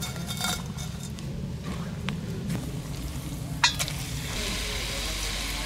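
Cubes of stew meat frying in a cast-iron Dutch oven over campfire coals, stirred with metal tongs that clink against the pot. There is a sharp clack about three and a half seconds in, and the sizzle turns into a steady hiss near the end.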